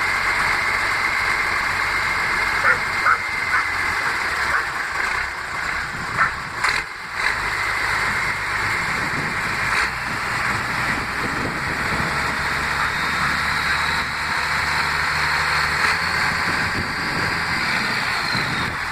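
Deutz Power 145 turbo diesel of a Pla MAP 3000 self-propelled sprayer running, with a steady low engine drone under a high turbo whistle made louder by a comb fitted in the turbo intake. The whistle holds steady in the first part, then a higher whistle climbs slowly in the second half and falls away near the end.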